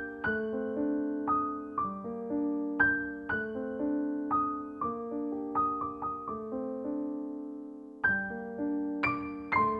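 Background piano music: a slow, gentle melody of single struck notes and soft chords that ring and fade. It pauses on a long fading note about seven seconds in, then picks up again.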